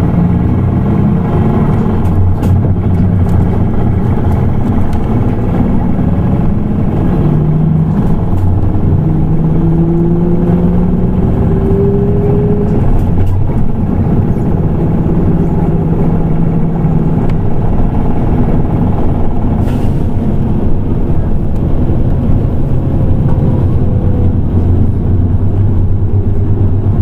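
Nissan Diesel Space Runner RA non-step city bus (PKG-RA274KAN) running under way, its diesel engine giving a steady low hum. Partway through the pitch climbs as the bus accelerates, then it holds steady.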